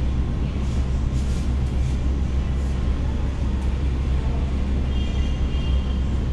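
Steady, loud low rumble of background noise, with a few faint clicks in the first half and a brief high electronic tone about five seconds in.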